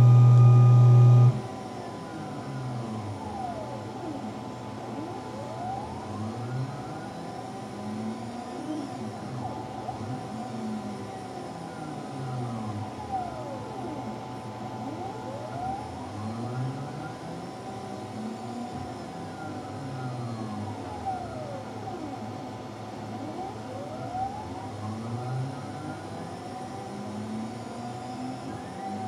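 CNC milling machine's axis drive motors whining as the engraving program moves the head and table, the pitch gliding up and down over and over as the axes speed up and slow down. The spindle is not running. A loud low buzz lasts about a second and a half at the start.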